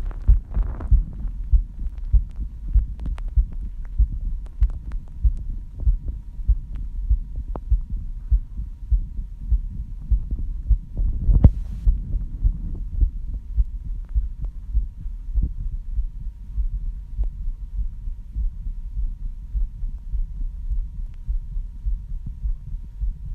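A human heartbeat, raised after cycling, heard as a quick, steady run of low lub-dub thumps. A faint steady high tone runs under it, and a brief rustling knock comes about halfway.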